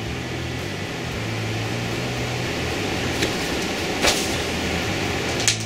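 Steady low hum, with a few short scraping or tapping sounds over it about three and four seconds in and near the end.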